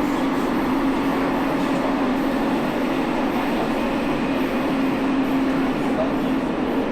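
Steady interior noise of an Elizabeth line Class 345 train, heard inside the carriage: a continuous rumble with a low, even hum.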